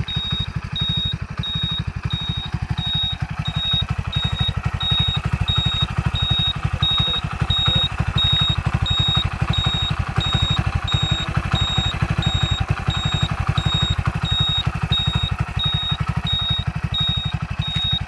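Hero motorcycle's single-cylinder four-stroke engine idling steadily with a fast, even putter. A thin high-pitched beep repeats a little over twice a second over it.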